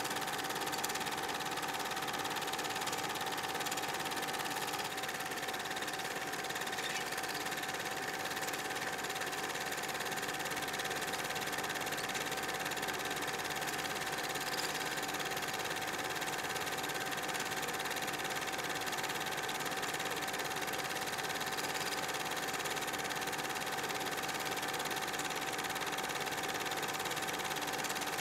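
8 mm film projector running: a steady mechanical whir with a constant tone.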